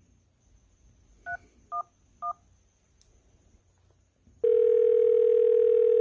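Phone keypad tones: three short two-tone beeps as a number is dialled, the first pitched higher than the other two. About two seconds later comes a steady, loud ringing tone as the call rings through.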